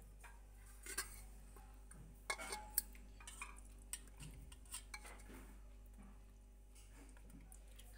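Metal serving spoon clinking and knocking against a metal pot of chickpea curry. There are a few sharp clinks, with several close together about two to three seconds in.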